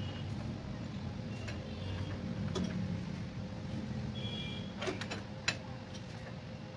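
Scattered clicks and knocks, with a few short squeaks, from hands and tools working the copper refrigerant-pipe connections at the back of a split AC indoor unit. A sharper click comes about five and a half seconds in. A steady low hum runs underneath.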